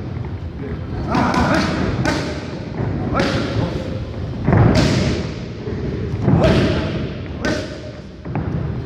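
Boxing gloves striking focus mitts in pad work: a run of sharp smacks, single and in quick pairs, about one every second or so.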